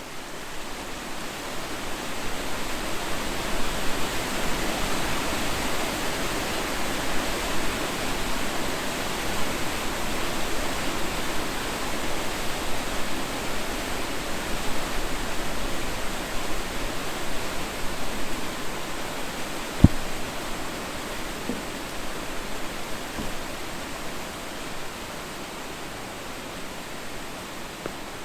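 Creek water rushing in a steady, even noise that builds over the first few seconds and fades near the end, with one sharp click about two-thirds of the way through.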